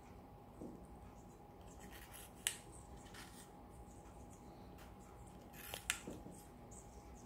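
A few sharp clicks of a monk parakeet's and a green-cheeked conure's beaks biting into an apple and tapping the plate: one about two and a half seconds in and a quick pair near six seconds, over a faint steady hum.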